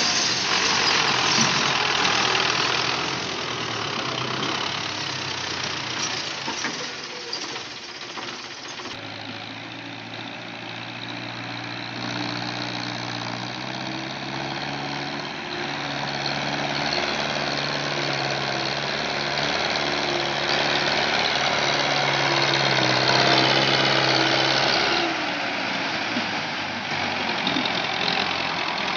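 Belarus tractor's diesel engine labouring with a knocking clatter as it hauls a heavily overloaded sugarcane trolley. It is loudest in the first few seconds, then settles into a steadier engine note that rises and falls in steps.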